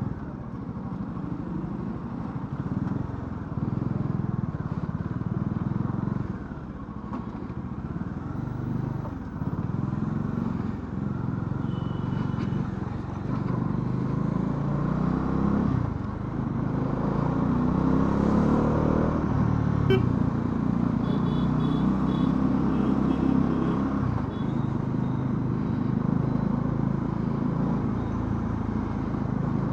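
Bajaj Dominar 400's single-cylinder engine running under way, its pitch rising and falling with the throttle, climbing noticeably about halfway through.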